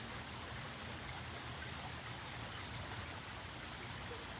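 Steady rushing outdoor ambience, an even hiss with a low rumble beneath it and no distinct events.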